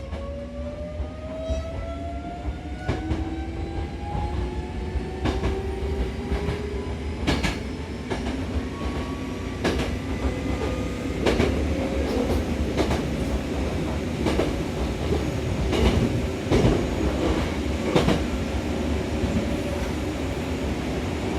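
Hankyu Takarazuka Line electric train pulling away and picking up speed. Its motors give a whine of several tones rising in pitch over the first several seconds, over a steady low rumble, and then the wheels click-clack over rail joints, more often as the train gains speed.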